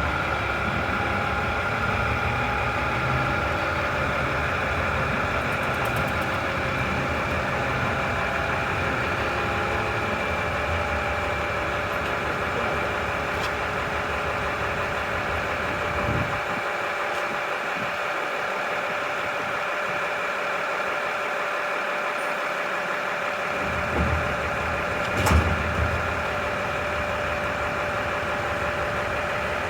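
Diesel railcar engine running steadily at idle. Its deep rumble drops away for several seconds about two-thirds of the way through, and a few short knocks and clunks come around then.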